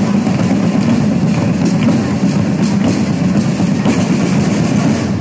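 A large drum corps playing marching drums together, a loud, dense and continuous rhythm of many strokes with a deep drum beat underneath.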